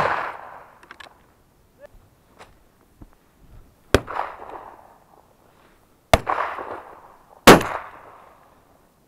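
Shotgun shots. The tail of one fades at the very start, then three more crack out, about four, six and seven and a half seconds in, each ringing away over about a second. A few faint clicks come between them.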